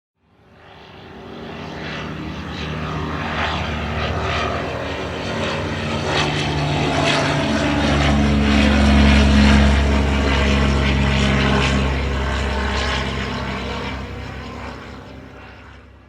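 Propeller airplane flying past: its engine drone fades in, grows loudest a little past the middle, and fades away.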